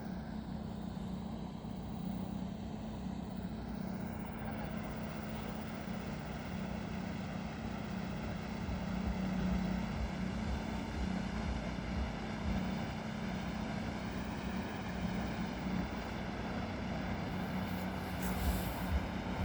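A steady, low engine drone holding one pitch, over a background hiss.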